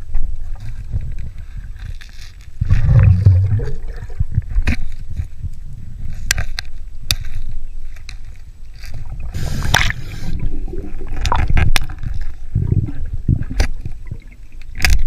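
Underwater sound of a scuba diver in a river: a low, muffled water rumble with swelling gurgles of regulator exhaust bubbles, about a few seconds apart. Sharp clicks and scrapes come as gloved hands handle metal lures and a knife on the bottom.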